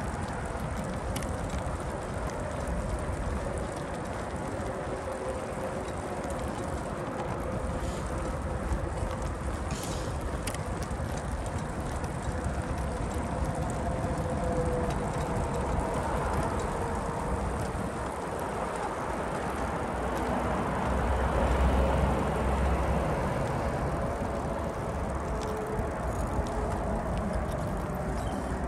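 Steady outdoor background noise with a low hum, and wind buffeting the microphone for about two seconds roughly twenty seconds in.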